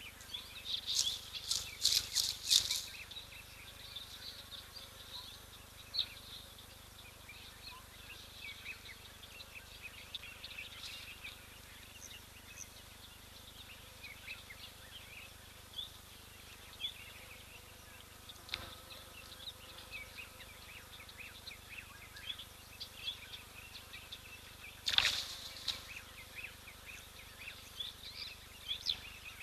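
Small birds chirping and calling, many short high chirps over a faint steady background hiss. A few loud, sharp calls come close to the microphone about one to three seconds in and again about 25 seconds in.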